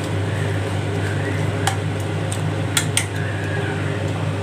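Perforated metal ladle stirring chicken pieces in thick gravy in a large metal pot, with a few sharp clinks of the ladle against the pot about halfway through. A steady low hum runs underneath.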